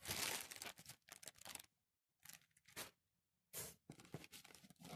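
Plastic bags and bubble wrap crinkling and rustling as a hand rummages through items packed in a cardboard box, in several short bursts with brief pauses between them.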